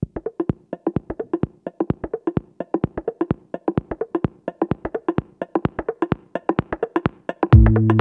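Background music: a quick, even run of short, wood-block-like percussive notes. Near the end a deep bass and synth beat comes in, much louder.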